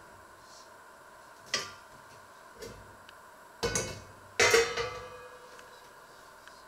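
Stainless steel pots and lid clanking as one lidded pot is lifted and set down on top of another on the stove. There are several knocks; the loudest clang, about four and a half seconds in, rings on briefly.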